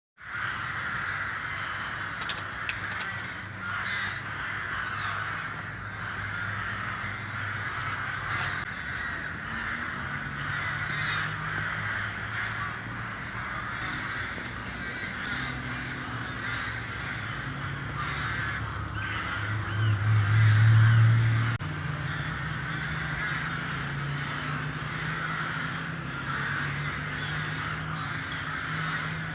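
A flock of ravens calling without pause, many birds calling over one another. Under the calls a low hum comes and goes, swelling to its loudest for a second or two about twenty seconds in.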